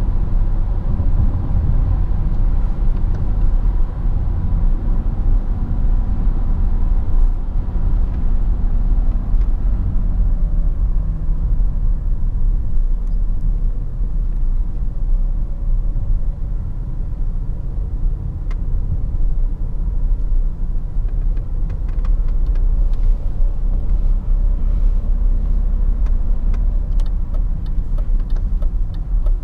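In-cabin sound of a 2002 BMW 530d (E39) driving: a steady low rumble of its straight-six turbodiesel and the tyres on the road. Faint clicks come in near the end.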